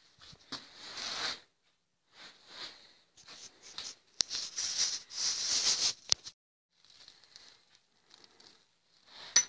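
Rustling and scraping handling noise in uneven bursts, with sharp clicks about four and six seconds in and a louder click near the end.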